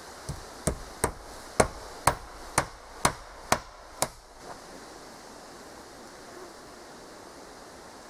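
Hammer driving a nail into a wooden board: about nine blows, roughly two a second, stopping about four seconds in.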